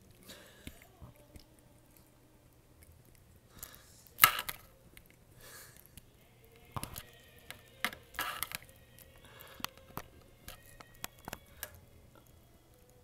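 Close-up handling noise on a small camera's built-in microphone as a Maine Coon cat noses at it: scattered clicks, taps and short rustles, with one sharp knock about four seconds in.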